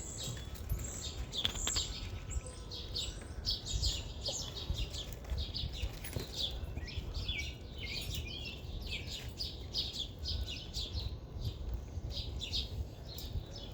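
Small birds chirping and calling, many short quick chirps overlapping, over a steady low rumble.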